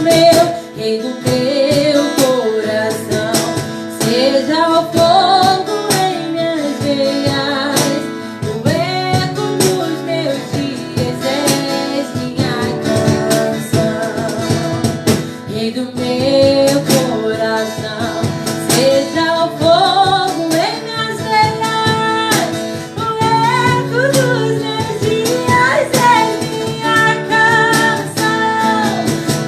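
Worship music: a voice singing over a strummed acoustic guitar.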